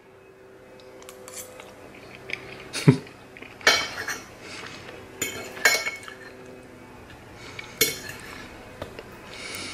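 Metal fork clinking and scraping against a glass plate, four or five sharp separate clinks about a second or two apart, over a faint steady hum.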